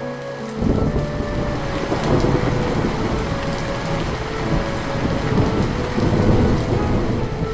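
Heavy rain with a deep rumble of thunder that sets in suddenly about half a second in and keeps rolling.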